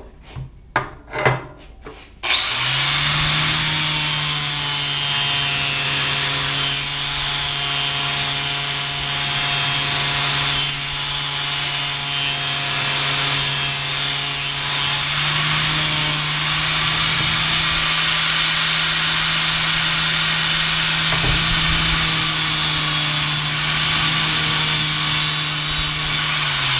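Handheld electric angle grinder running at steady speed while it grinds metal off a small pulley part, with a constant motor whine under the rasp of the disc on the metal. It starts about two seconds in after some handling clicks and keeps going without letting up.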